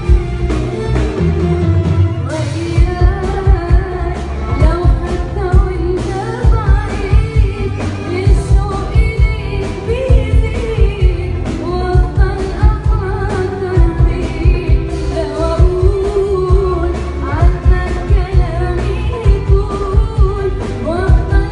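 A female vocalist singing an Arabic pop song over band accompaniment with a steady drum beat.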